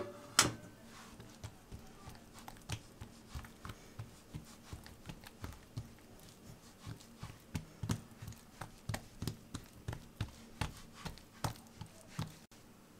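Oiled hands patting and pressing dough flat on a wooden board: a run of soft, irregular pats, a few a second, after two sharper slaps at the start.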